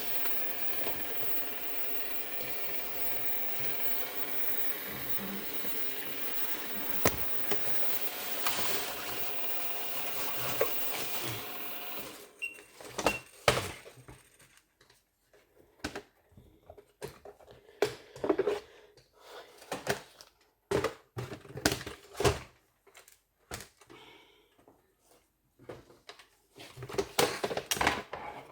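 A small electric motor runs with a steady hum and cuts off suddenly about twelve seconds in. After that come irregular knocks, clicks and clatter from handling.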